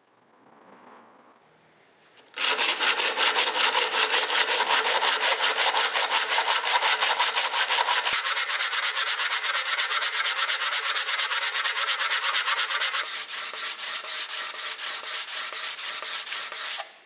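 Sandpaper rubbed back and forth by hand on wood, about four to five strokes a second. It starts about two seconds in, gets a little quieter for the last few seconds, and stops abruptly near the end.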